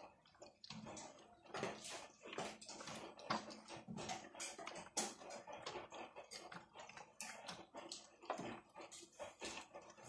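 Water sloshing and splashing inside a toy Miele washing machine's drum as it tumbles socks during the first rinse, in irregular swishes.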